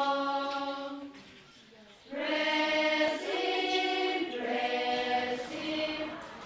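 A children's choir singing slow, long held notes; the first note fades out about a second in, and after a short pause the singing starts again.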